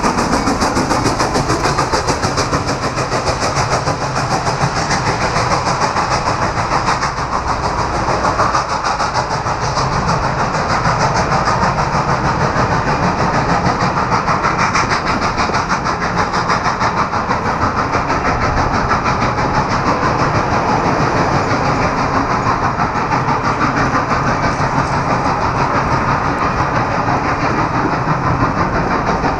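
Norfolk & Western 611, a J-class 4-8-4 steam locomotive, passing close by, followed by a long string of passenger cars rolling steadily past. Their wheels clatter continuously over the rails.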